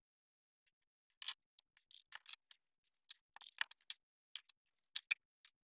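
Irregular small clicks and short scrapes of hands handling the portable speaker's plastic parts and small tools on a workbench, starting about a second in.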